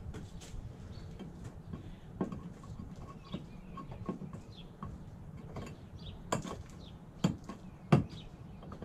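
Knocks and clacks of a cut Eldorado stacked-stone veneer panel being handled and pressed into place against its neighbours in the course, with three sharper knocks near the end, the last the loudest.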